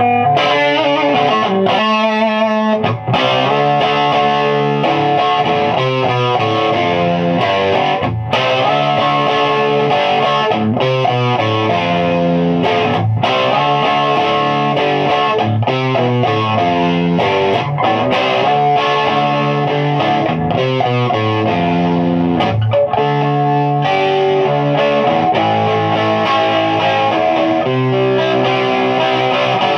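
Loud, heavily overdriven electric guitar chords, very high gain, from a 1975 Gibson Les Paul Deluxe with P90 pickups played through a Mojotone 5E3 kit amp (a clone of the 1959 Fender tweed Deluxe with 6V6 output valves) turned fully up. The chords change every second or so, with brief breaks between some of them.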